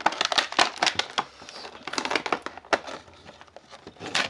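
A cardboard toy box being torn and crushed open by hand: a rapid run of crackles and rips that thins out midway and picks up again near the end.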